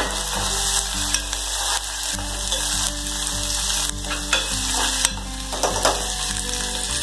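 Chopped vegetables, green peas among them, sizzling in hot oil in an aluminium pressure cooker while a metal spoon stirs them, scraping and clicking against the pot a few times.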